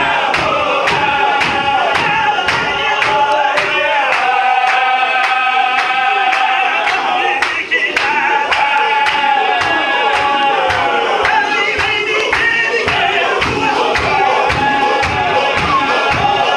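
Men's zikr chant: a chorus of male voices singing a drawn-out melody together over a fast, steady beat of about three strikes a second. The deep thud of the beat drops out for a few seconds mid-way, then returns.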